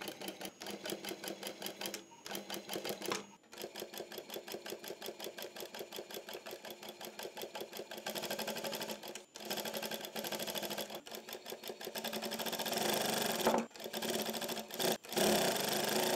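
Brother industrial single-needle lockstitch sewing machine stitching cord piping at a rapid, even stitch rhythm, with a few brief pauses. It gets louder in the last few seconds.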